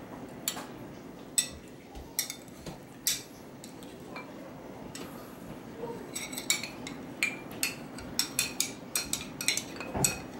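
Metal spoon clinking and scraping against a soup bowl as meat is scooped up: a few scattered light clinks, then a quick run of them in the second half.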